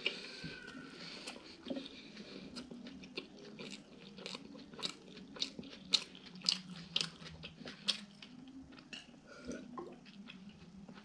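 Close-miked chewing of a soft pancake filled with pepper salad: a steady run of mouth smacks and clicks, about one or two a second.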